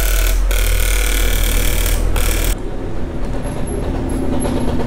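Electric arc welding on a cracked Yamaha RXZ motorcycle crankcase: the arc's loud, steady crackling hiss over a low hum, broken once briefly, cuts off suddenly about halfway through. A quieter steady hum carries on after it.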